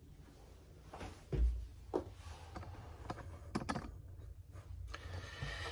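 Handling noise: a dull thump about a second and a half in, then several light clicks and taps of small steel rifle-bolt parts being handled.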